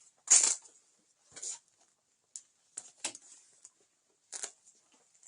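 Nylon tactical vest being handled: a few short, irregular rustles and scrapes of fabric, the loudest about half a second in.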